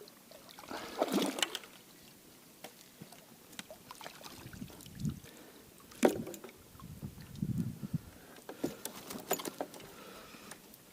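Knocks, clicks and water splashing in a small fishing boat as a hooked carp is handled, with one sharp knock about six seconds in.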